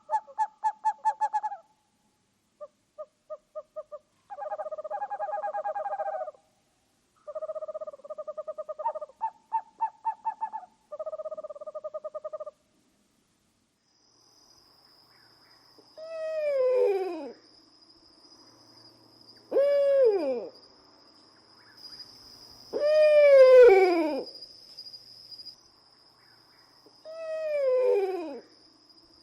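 Owl calls: first a run of rapid, pulsing trills held at a steady pitch, then, after a short pause, four wavering calls that each slide steeply down in pitch, over a steady high-pitched whine.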